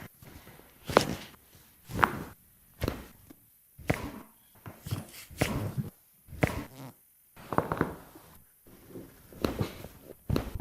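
A chiropractor's hands striking a patient's back during treatment: a series of dull thumps, about one a second.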